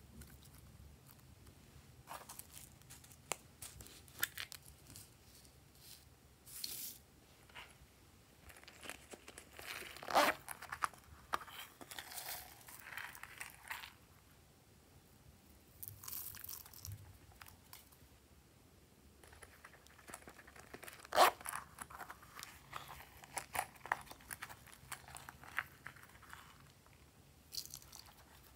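Hands working slime and its add-ins (glitter slime, flower-shaped sequins and foam beads), making irregular crackles, clicks and crunches. Two louder crackling bursts come about a third of the way in and again about three-quarters through.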